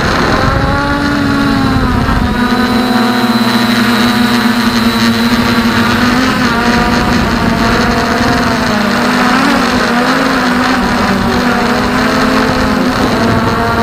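MJX Bugs 2 quadcopter's brushless motors and propellers buzzing loudly, heard from the camera mounted on the drone, a steady drone whose pitch wavers slightly with throttle.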